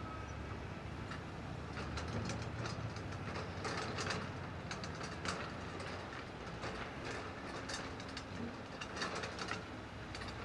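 CAT 315C hydraulic excavator with its diesel engine running steadily as the bucket digs into dirt, giving two spells of rapid clanks and scrapes.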